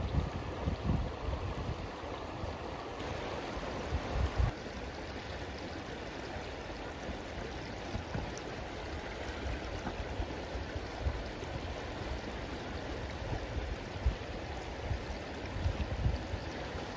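River water rushing steadily, with gusts of wind buffeting the microphone now and then.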